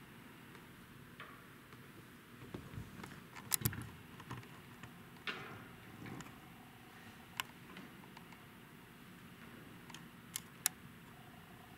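Quiet church room tone with footsteps and soft shuffling, broken by a few sharp clicks: two in quick succession a few seconds in and two more near the end.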